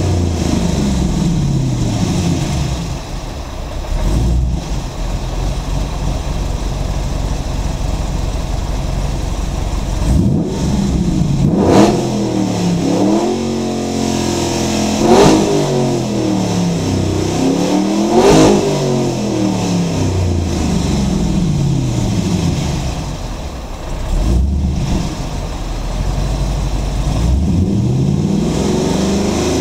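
2008 Holden Commodore's 6.0-litre V8 revved while the car stands still. The revs settle down from a high hold in the first few seconds. Then the throttle is blipped several times, and each rev climbs sharply and falls back, about four times over the second half.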